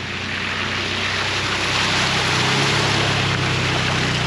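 Bobcat E42 mini excavator's diesel engine running with a broad hiss over it. The engine note grows louder and heavier from about two seconds in, as the machine works under load.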